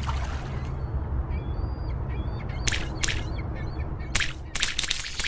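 Sound-effect ambience: a steady low drone with bird calls and several short noisy swishes in the second half.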